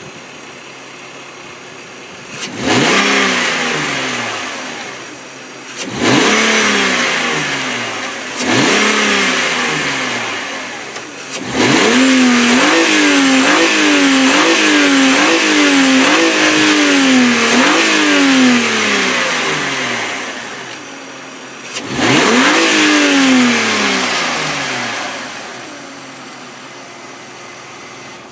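BMW E46 330Ci's warm 3.0-litre M54 straight-six with its stock exhaust, revved from idle: three single revs that fall back, then a run of about six quick blips, then one more rev that settles back to a steady idle.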